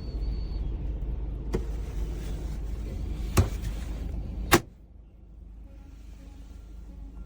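A steady low rumble with three sharp knocks. The last and loudest comes about four and a half seconds in, and after it the rumble drops away sharply to a faint background.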